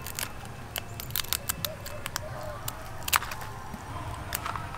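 Scissors snipping through the shell of a giant freshwater prawn (golda chingri): a string of sharp, irregular clicks and crunches, the loudest a little after three seconds in.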